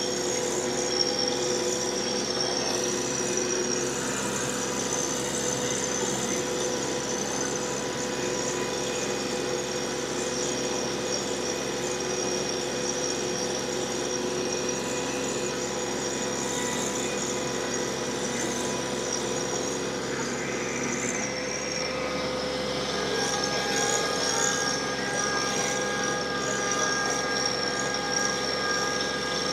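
TYM T264 compact tractor's diesel engine running steadily under heavy load, driving a PTO rotary tiller that churns through clay soil, with a steady high whine from the drive. The whining tones shift and thicken about three-quarters of the way through.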